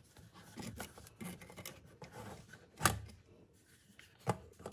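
Lid of a Tefal stovetop pressure cooker being unlocked and turned open: metal scraping and rubbing, with two sharp clicks, about three and four seconds in.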